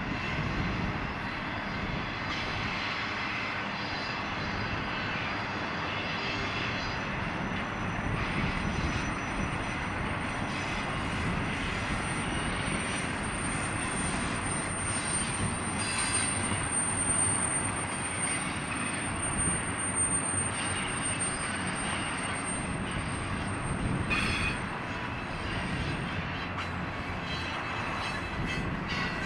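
Double-stack intermodal freight cars rolling past on steel wheels and rails, a steady noise of the running train with a few knocks. A thin, high-pitched wheel squeal sets in about four seconds in and fades out near the end as the last cars go by.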